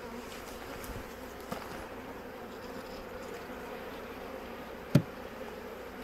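Honey bees from a strong, crowded colony buzzing steadily around an open hive, with two sharp knocks near the end about a second apart.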